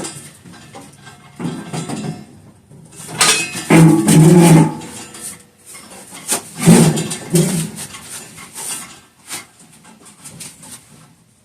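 Metal clanking and knocking as a heavy steel load is lifted and set in place, with two loud strained grunts about four and about seven seconds in.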